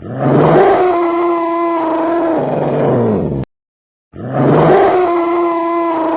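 A drawn-out, low animal call, rising at the start and falling away at the end, played twice in a row with a short silence between.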